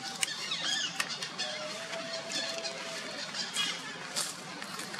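Several short, high-pitched squeaky calls sliding down in pitch, with a held whistle-like tone about a second and a half in, over a steady outdoor hiss with scattered clicks.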